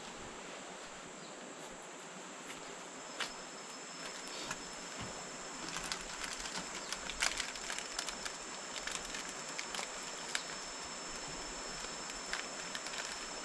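Forest ambience: a steady high-pitched insect drone over an even hiss, with scattered sharp clicks and ticks from about three seconds in, thickest around the middle.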